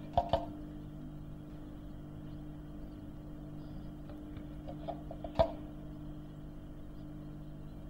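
A few light clinks of a metal spoon against a glass bowl, the sharpest about five seconds in, over a steady low hum.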